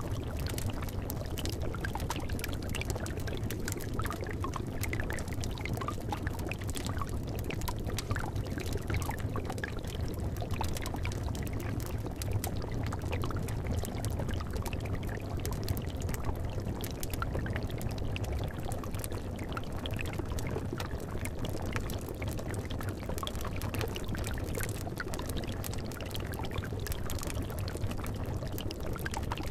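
Liquid bubbling steadily in a cauldron: a dense, unbroken run of small pops and gurgles over a low, even wash.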